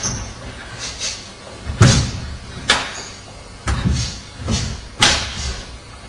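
Karate kata techniques: the cotton gi snapping sharply on strikes and bare feet thudding on a wooden floor, a string of sudden impacts about a second apart, the loudest about two seconds and five seconds in.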